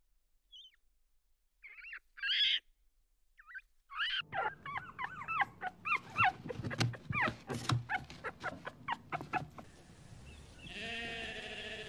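A poodle puppy whining and yelping in a quick run of high cries that slide up and down in pitch, from about four seconds in. Near the end a sheep bleats once. Before the puppy there are a few short, high squeaks over near silence.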